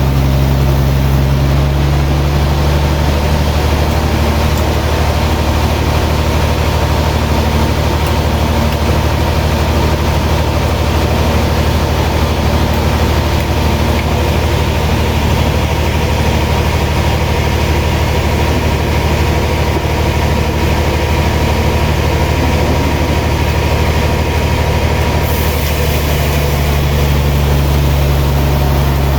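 Heavy sawmill machinery running steadily: a loud, continuous low drone with a constant hiss of noise above it.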